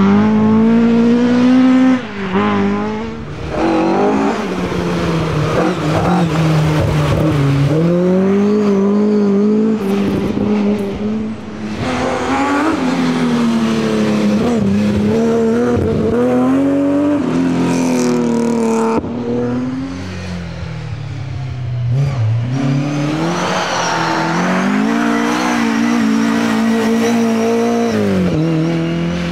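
Classic rally cars, among them Ford Escorts and a BMW E30, driven hard one after another. Their engines rev high, fall away on lifts and gear changes, and pull up again.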